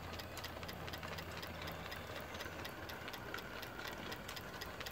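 Single-cylinder vertical model steam engine (a Stuart Williamson) running in steam, giving a rapid, even light ticking over a faint low hum.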